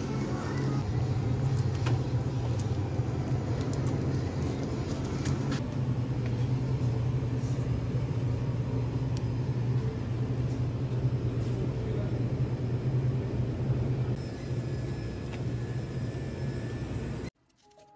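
Supermarket aisle background noise: a steady low hum and hiss beside open refrigerated display shelves, with a few faint clicks in the first few seconds. It cuts off suddenly near the end.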